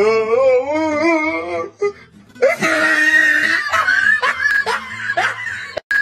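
Women shrieking in fright at a scare. A wavering cry comes first, then a long high-pitched scream about two and a half seconds in, breaking into short rising cries and laughter near the end.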